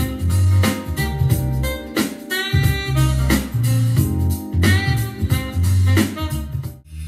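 Music with guitar and a heavy, pulsing bass line over a steady beat, played back through a portable Bluetooth speaker. It drops out briefly just before the end.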